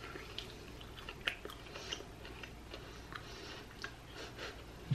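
A man biting and chewing a Japanese sticky chicken wing: soft, wet chewing with scattered small mouth clicks, the sharpest about a second in.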